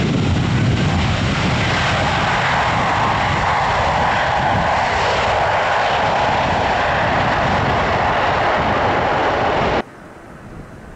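Airliner engines running loud as the plane passes close, a dense rumble that shifts from deep to higher-pitched. It cuts off suddenly about ten seconds in, leaving wind noise on the microphone.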